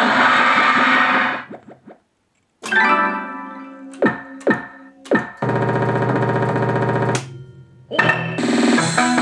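Pachislo slot machine's synthesized sound effects: a loud electronic jingle fades out in the first two seconds, and after a short gap come pitched electronic tones with three quick falling-pitch sweeps, then a steady buzzing tone for nearly two seconds. About eight seconds in, upbeat synthesized music starts as the jackpot bonus begins.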